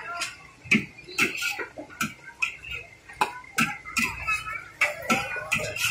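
Metal ladle knocking and scraping against a wok as sweet potato balls are stirred and pressed in hot oil: irregular clicks, about two or three a second, over a faint frying hiss.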